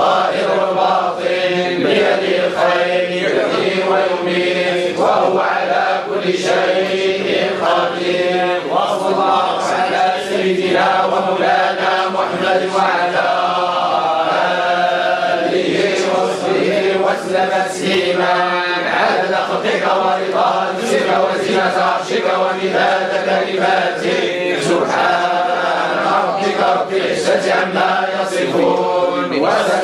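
A group of men chanting together in a continuous Sufi devotional chant, many voices in unison without a pause.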